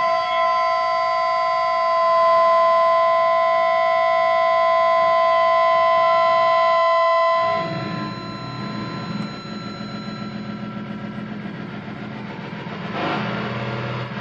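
No-input mixer feedback from a Mackie 1402-VLZ mixer looped through an Electro-Harmonix Canyon delay pedal: a steady chord of high electronic feedback tones that breaks off about seven and a half seconds in to a low, rough, fluttering drone. A brighter, noisier swell rises near the end.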